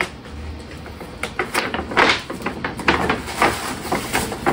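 A gift's packaging being handled and opened: a run of short, irregular rustles and knocks that starts about a second in.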